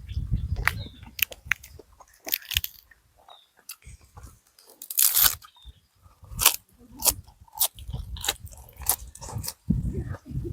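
Close-miked eating of beef noodle soup: wet chewing and mouth clicks, with a longer slurp about five seconds in.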